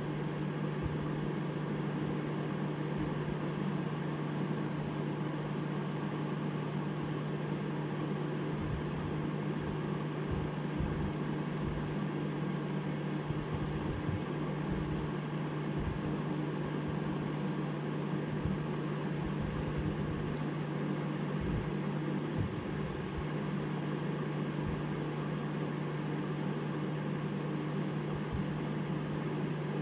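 Steady hum and hiss of a running aquarium air pump, with air bubbling from its airline into the tank water and irregular soft low thumps.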